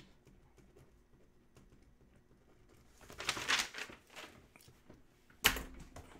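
Desk and computer-keyboard handling sounds: faint scattered clicks, then a short rush of noise about three seconds in and one sharp knock about five and a half seconds in.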